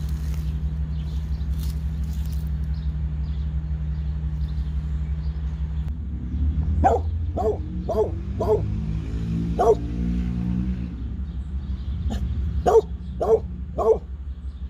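A dog barking: four quick barks about half a second apart, a single bark, then three more near the end, over a steady low hum.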